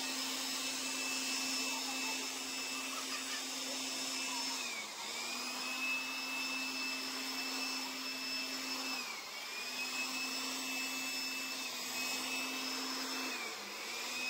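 Handheld electric air blower running with a steady motor whine. Three times, about every four and a half seconds, the motor briefly slows and drops in pitch, then speeds back up.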